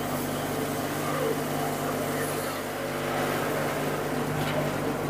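Stainless-steel multigrain pulverizer (atta chakki) running with a steady hum, while chana dal grains pour into its steel hopper with a light hiss.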